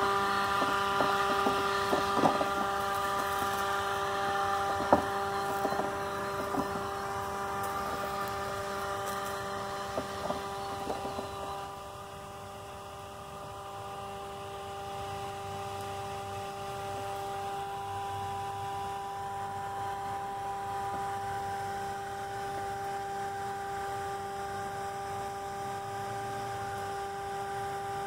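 Ambrogio L300 Elite robotic lawn mower running, its electric motors giving a steady humming whine with clicks and ticks scattered through the first eleven seconds. The sound drops a little about twelve seconds in as the mower moves off across the lawn.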